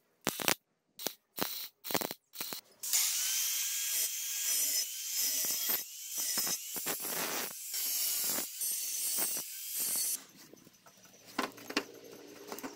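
A MIG welder laying a quick series of tack welds on square metal tubing, each a short crackling burst. About three seconds in, an angle grinder takes over and grinds the tubing for about seven seconds, its pitch sagging and recovering as it bites. It stops suddenly, leaving only faint clicks.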